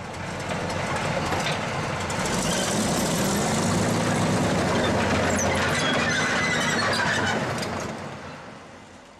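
A heavy vehicle running, with metal squealing and clattering over a low engine drone; it swells in over the first second, holds steady, and fades away over the last two seconds.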